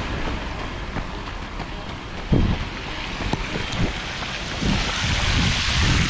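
Wind buffeting the microphone with a low rumble, a few soft footstep thumps, and the hiss and splash of a fountain's water jets growing louder in the second half.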